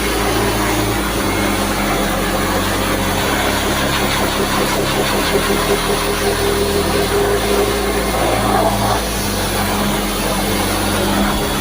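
A machine running steadily, a constant hiss with a hum under it.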